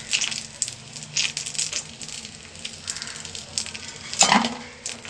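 Battered eggplant slices sizzling and crackling in hot oil as they finish frying, with a louder clatter about four seconds in.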